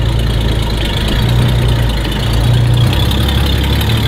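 1930 McLaughlin-Buick's six-cylinder engine running at low speed as the car drives slowly past, a steady low engine note.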